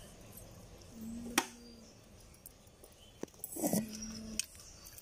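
A few light clicks of snail shells and a pin against a steel bowl as boiled snail meat is picked out, with two short steady-pitched animal calls in the background, about a second in and again past the middle.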